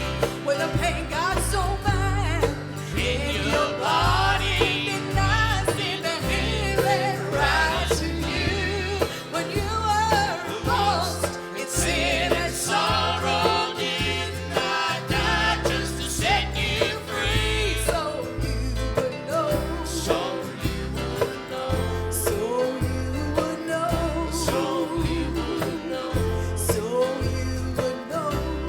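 Gospel song: voices singing over instrumental accompaniment, with a pulsing bass line keeping a steady beat.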